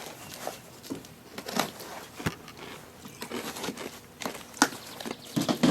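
Packaging being handled as a small box of hardware is opened: irregular crinkling and crackling of wrapping, with small knocks and clicks.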